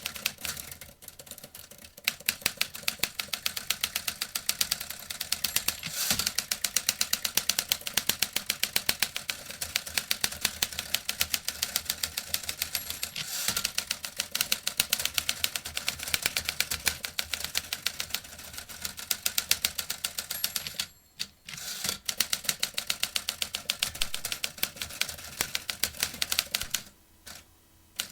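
Vintage typewriter being typed on: rapid, continuous key strikes clacking in long runs, with a brief pause about three-quarters of the way through and sparser strokes near the end.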